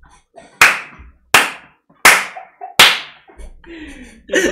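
Four sharp hand slaps or claps, evenly spaced about three-quarters of a second apart.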